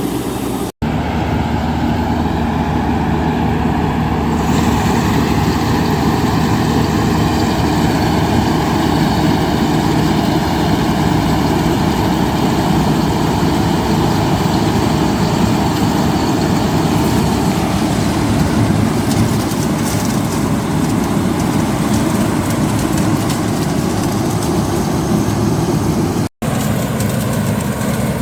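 Heavy farm machine's diesel engine running steadily at close range, a continuous drone broken by two brief silences, about a second in and near the end.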